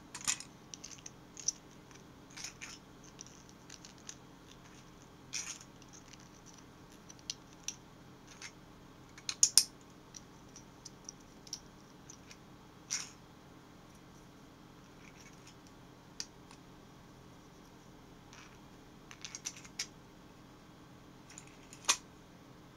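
Light plastic clicks and clacks of a 3D-printed prop revolver being handled and its cylinder worked by hand, scattered and irregular, with a louder cluster about nine seconds in and a single sharp click near the end. A faint steady hum lies underneath.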